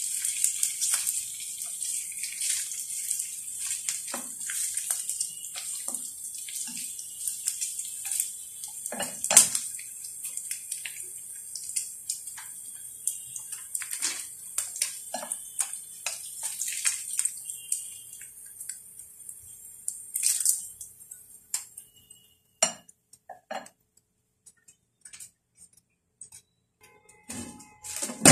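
Thin slices of meat sizzling in hot oil in a ceramic nonstick frying pan, with chopsticks clicking against the pan now and then. The sizzle dies away about three-quarters of the way through, leaving only a few scattered clicks.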